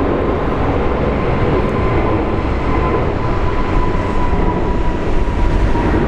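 Jet engines of a Boeing 777 freighter passing, a steady loud rumble with a thin whine running through it that slowly drops a little in pitch.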